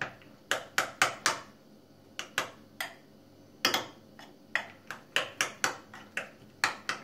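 Metal spoon clinking against a ceramic bowl as oatmeal with milk and banana is stirred. Quick runs of sharp taps, about three or four a second, break off twice briefly in the first three seconds.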